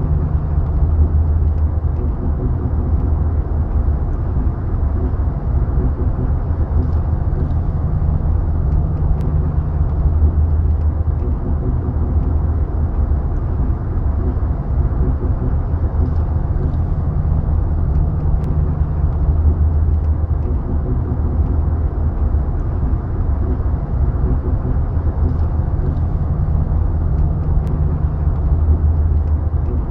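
BMW E36 on the move: a steady low rumble of engine and road noise that swells and eases every eight or nine seconds, carrying the unusual knocking noise that sounds like driving on train tracks.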